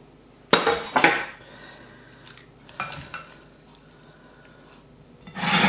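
Serving spoons clinking and clattering against a ceramic plate and dish as food is served. Two sharp knocks come about half a second apart near the start, a few lighter clinks follow around three seconds in, and a longer clatter comes near the end.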